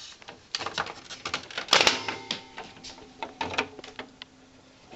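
Irregular clicks and light knocks from hands handling parts inside an open desktop computer case, with one louder knock a little under two seconds in.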